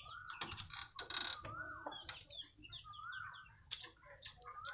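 Chickens calling in the yard: a repeated call about every second and a half, with quick, high, falling chirps in between. A brief rustle comes about a second in.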